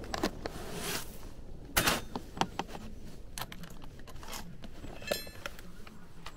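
Aluminium-framed tool case being unlatched and opened on gravel: sharp clicks and knocks from the metal catches and case, the loudest a little under two seconds in, then a quick metallic rattle about five seconds in as the lid comes up on the core drill bits.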